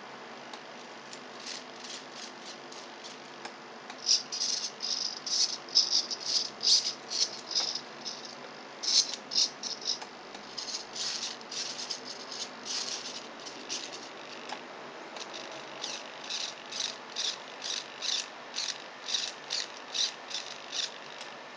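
Small hobby servos of a robotic claw whirring in short, quick bursts as they jerk the claw to new positions. The bursts start about four seconds in and come roughly twice a second, thinning briefly past the middle.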